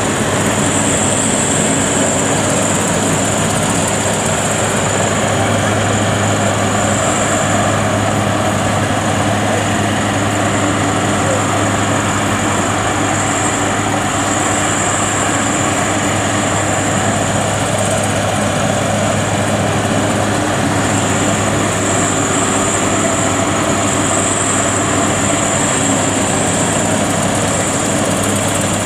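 WD102PRO rice combine harvester running steadily under load as it cuts standing rice: an even, unbroken engine and machinery drone.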